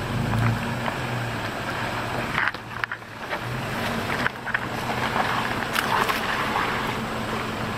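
A four-wheel drive's engine running at low revs as it crawls down a steep muddy track, under a steady hiss of wind and rain, with a few sharp taps.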